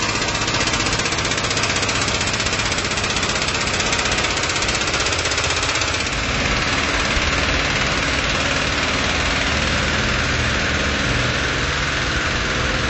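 Air-over-hydraulic cab-tilt pump on an Oshkosh HT tractor running steadily with a rapid, even pulsing as it raises the truck's cab.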